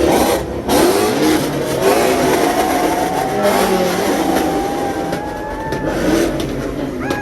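Car engines revving and accelerating as cars pull out, with a long, slowly rising engine note in the middle.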